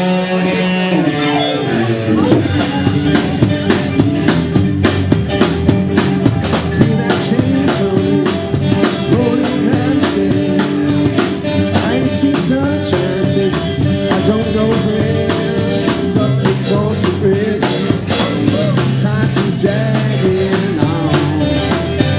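Live blues band playing: held notes open, then about two seconds in the drum kit comes in with a fast, steady beat under electric guitar, bass and keyboards, with a lead melody line over the top.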